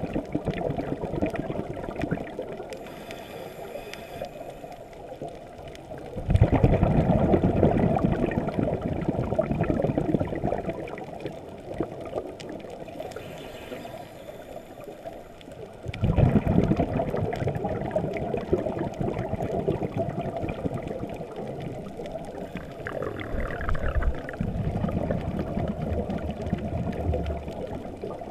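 Muffled underwater water noise picked up by a GoPro in its waterproof housing: a low rushing, gurgling sound that swells louder twice, for several seconds each time.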